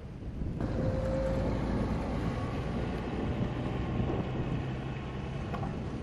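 Wind buffeting the microphone, a steady low rumble that grows suddenly louder about half a second in. A faint steady engine hum sits under it in the second half.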